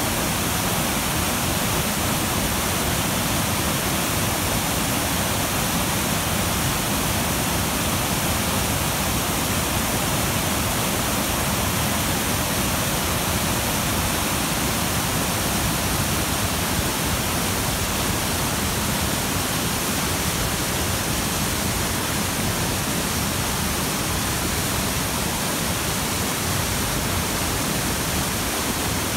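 Steady rushing of a rain-swollen river pouring over a low weir: floodwater tumbling and foaming after heavy rainfall.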